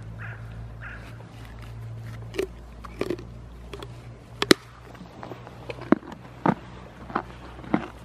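Pony biting and crunching a carrot held in a hand, with about seven sharp, irregular crunches, the loudest around the middle.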